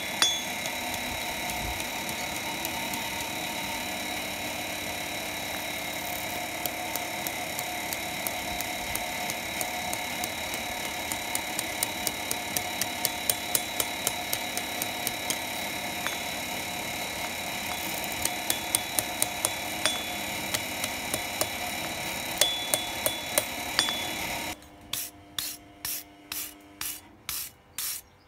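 Light hammer taps on hot steel on an anvil, in quick runs of several blows over a steady hum. Near the end the hum stops and a wire brush scrubs back and forth over the piece, about two strokes a second.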